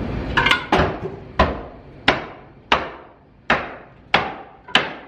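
Hammer blows on a wooden plank wall being knocked loose: a steady run of about eight sharp strikes, roughly three every two seconds, each ringing out briefly.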